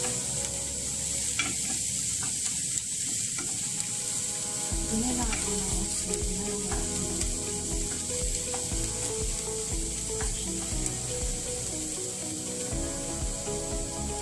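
Diced onions sizzling in hot oil in a ceramic-coated frying pan, stirred and scraped along the pan with a wooden spatula.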